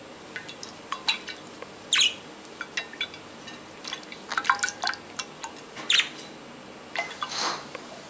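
Budgies chirping in short, sharp calls, with water dripping and splashing as they bathe; the loudest chirps come about two and six seconds in.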